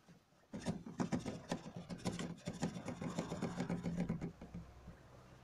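Liquid glugging out of an upturned plastic jug into a car's coolant expansion tank: a rapid, irregular bubbling gurgle as air pushes back up into the jug, starting about half a second in and dying away near the end.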